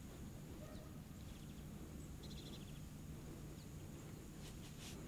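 Quiet outdoor background: a low steady rumble, with a faint brief high trill about two seconds in and a couple of faint clicks near the end.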